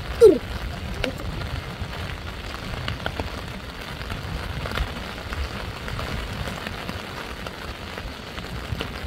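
Steady patter of rain with a low wind rumble on the microphone. Just after the start comes one brief cry whose pitch falls, the loudest moment, and a few faint knocks follow later.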